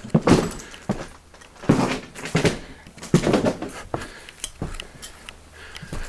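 Irregular footsteps scuffing and knocking over debris on the floor, one every half second to a second.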